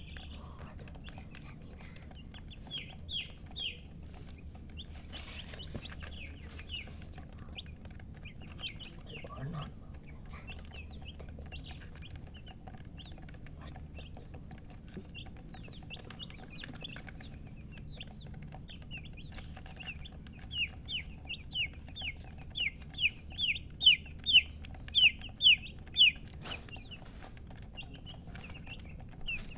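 Baby chicks peeping in short, high chirps, scattered at first, then a fast, loud run of peeps about two-thirds of the way through, over a steady low hum.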